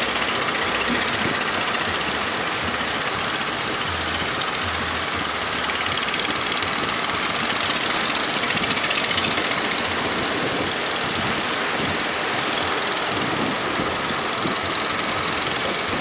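Steady noise of breaking surf and wind, with the engines of small wooden fishing boats running as they push out through the waves.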